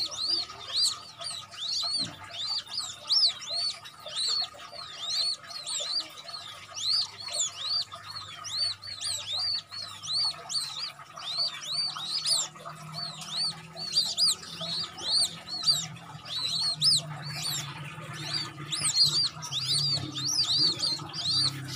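A brood of newly hatched chicks, white-breasted waterhen chicks with a young quail, peeping continuously: high, arched peeps several times a second, with no let-up.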